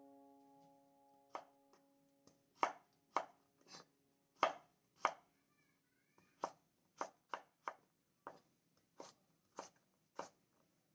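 Chef's knife chopping a carrot on a wooden cutting board: a series of sharp knocks, one or two a second, with a short pause about six seconds in. A piano chord from background music dies away in the first two seconds.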